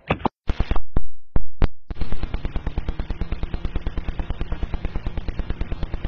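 Gunfire: several separate loud shots, then from about two seconds in a long, steady burst of rapid automatic fire, about a dozen rounds a second.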